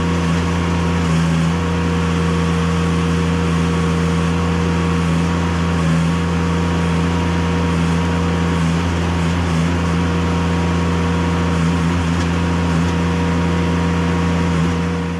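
Kubota diesel engine of a mini excavator running steadily at a constant speed, its level dropping away just at the end.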